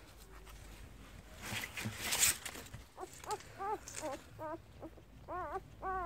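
Newborn puppies squeaking and whining in short, high, rising-and-falling cries, two or three a second, starting about halfway through, after a brief rustle of bedding.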